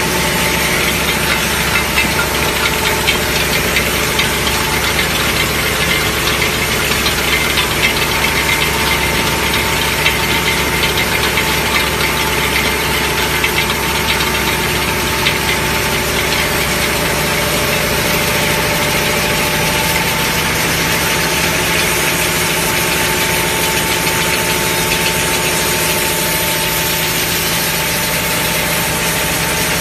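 Plastic bottle-cap compression moulding machine running at production speed: the rotary mould turret turning with a steady machine hum holding several even tones, under a continuous rattle of small clicks.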